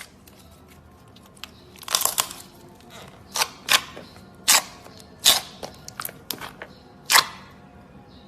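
Slime being handled, giving sharp pops and clicks at irregular intervals: a cluster about two seconds in, then single louder pops roughly every half second to second.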